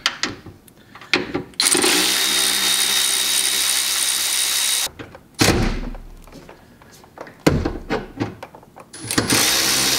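Cordless electric ratchet running steadily for about three seconds to back out a 13 mm sway bar bracket bolt. A low clunk and a few metallic clicks follow, and the ratchet runs again near the end.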